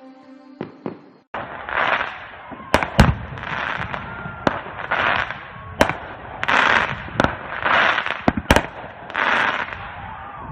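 Fireworks going off: from about a second and a half in, a dense hiss that swells and fades roughly once a second, broken by several sharp bangs and cracks.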